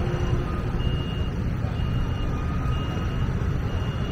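City street traffic rumbling steadily at rush hour, with a high electronic beep repeating about once a second.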